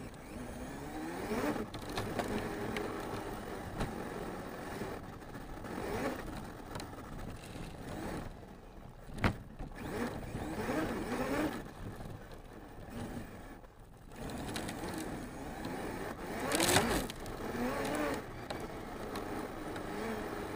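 Arrma Mojave 6S RC truck's brushless electric motor whining, its pitch rising and falling over and over as the throttle is worked, with tyre and chassis noise from rough ground. A sharp knock about nine seconds in and a louder brief clatter near seventeen seconds come from the truck taking bumps.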